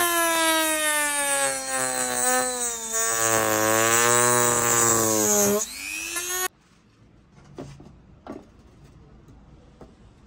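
Handheld rotary engraving tool whining at high speed while it carves wood. Its pitch sags and wavers, then climbs sharply before the sound cuts off suddenly about six and a half seconds in, leaving a few light taps.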